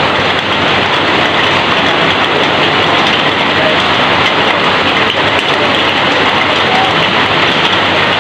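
Heavy rain falling steadily on and streaming off a corrugated roof, a loud, dense, even hiss with no breaks.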